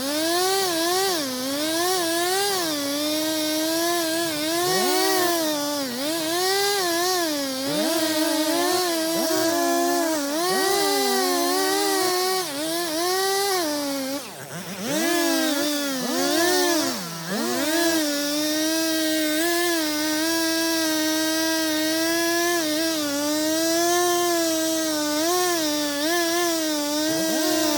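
Two-stroke chainsaw running hard, its engine pitch rising and sagging continually as it works. Twice, about halfway through, it briefly drops toward idle and then revs back up.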